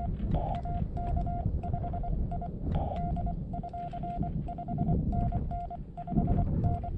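Morse code (CW) from a portable ham radio: a single steady tone keyed on and off in short dits and longer dahs, over a low rumble.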